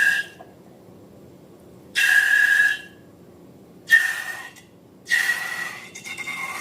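Air let out of a balloon's neck in short hissing, whistling spurts: four in all, the last one from about five seconds in running on longer.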